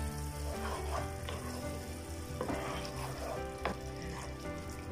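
Wooden spoon stirring a simmering tomato curry in a non-stick pan. The curry sizzles steadily, and the spoon scrapes against the pan a few times. Soft background music plays under it.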